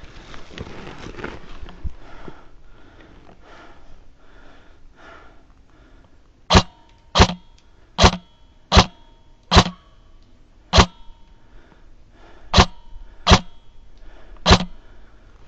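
An airsoft gun firing single shots: nine sharp cracks, most about 0.7 seconds apart, with a short pause after the sixth, over a steady low rustle.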